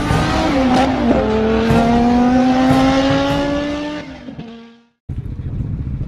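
Race car engine revving hard: the note sags, jumps to a new pitch about a second in as with a gear change, then climbs slowly and fades out after about four seconds. A steady outdoor rumble takes over near the end.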